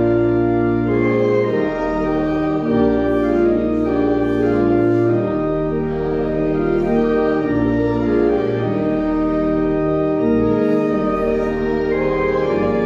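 Pipe organ playing a hymn in sustained chords over held bass notes, the harmony changing every second or two.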